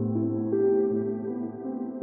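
Background music: slow ambient keyboard music with held notes that change every half second or so.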